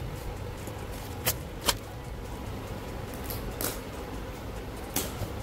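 A taped cardboard shipping box being handled and opened by hand: four sharp clicks and crackles of cardboard and packing tape, over a steady low hum.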